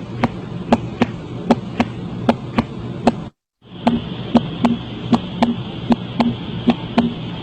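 Recorded heart sounds: a quick, even run of paired lub-dub beats over a steady hiss. They break off briefly about three and a half seconds in, and a second recording with a similar beat follows.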